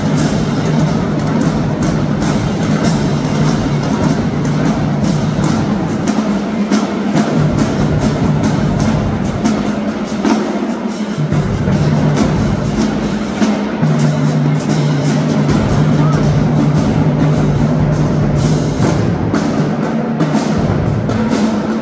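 Marching drumline playing: snare drums, multi-tenor drums and bass drums in fast, dense rhythms, with hand crash cymbals.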